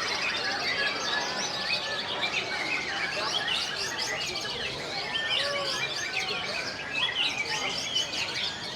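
Many caged songbirds singing at once in a competition chorus, a dense tangle of overlapping whistles, trills and chirps with no pause.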